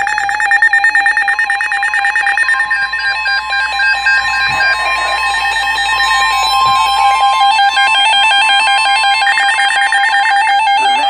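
NOAA Weather Radio Emergency Alert System activation. Warbling digital SAME header data bursts come first, then a steady 1050 Hz warning alert tone holds for several seconds, and another data burst sounds near the end. It is the signal that a warning, here a flash flood warning, is about to be read.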